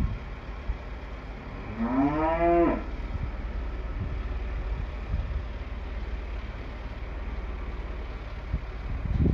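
A bull moos once about two seconds in, a single call of about a second that rises in pitch. Under it a farm tractor's engine runs steadily with a low rumble.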